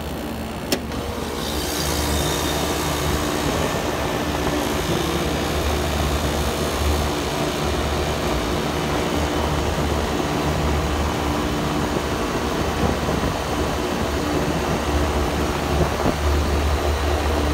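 A sharp click about a second in, then a Trane Voyager YCD-151 rooftop unit starts in test mode and runs steadily: motor hum with a rush of air from the condenser fan. One condenser fan is not being started by its relay and only spins backwards in the airflow.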